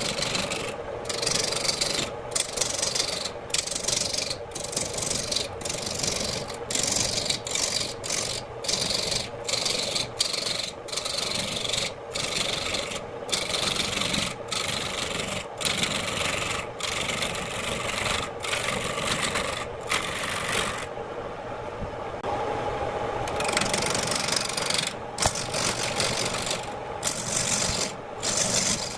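Hand-held turning tool cutting a spinning redwood blank on a wood lathe: a harsh scraping hiss of shavings being cut, broken by short gaps about once a second as the tool is moved, over the steady running of the lathe. About three-quarters of the way through, the cutting stops for about two seconds and only the lathe is heard.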